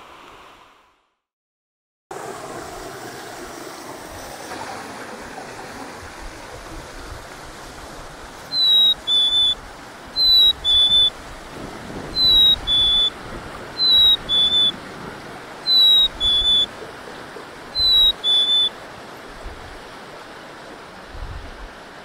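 Black-capped chickadee singing its clear two-note "fee-bee" whistle, a high note then a lower one, six times about every two seconds. A steady rush of river water runs underneath, and the song comes in after several seconds of water alone.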